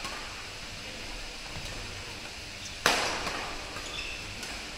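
Badminton racket striking the shuttlecock: one sharp crack about three seconds in that echoes through the hall, with a few faint taps around it.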